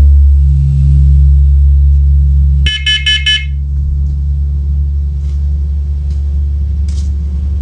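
Carbon monoxide alarm sounding in test mode: a quick group of four short, high-pitched beeps, the carbon monoxide alarm pattern, about two and a half seconds in. Before the beeps, a loud low rumble runs and then eases off as they start.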